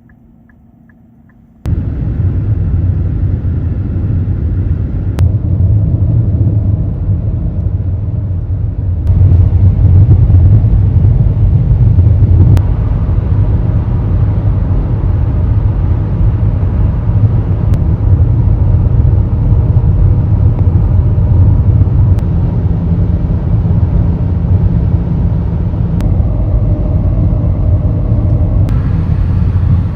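A car driving at speed: a steady low rumble of road and engine noise that comes in about two seconds in and holds.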